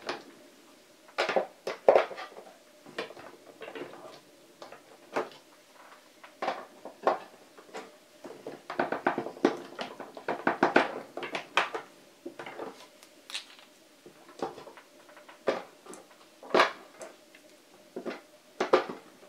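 18650 lithium-ion cells being picked from a sorting tray and pressed into plastic cell-holder grids: irregular light clicks and clinks, with a quick run of them about nine to eleven seconds in.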